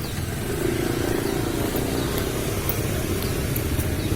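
Motorcycle engine running and drawing nearer, its sound growing slightly louder toward the end.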